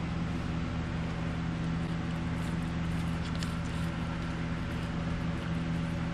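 A steady low mechanical hum, with a dog's faint wet licking and nibbling at a watermelon wedge about halfway through.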